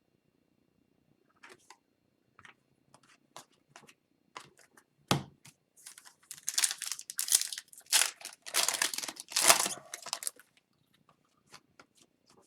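Foil wrapper of an Upper Deck Series 1 hockey card pack being torn open and crinkled. Light rustles and clicks of cards being handled come first, then a loud run of tearing and crinkling from about halfway in, easing off near the end.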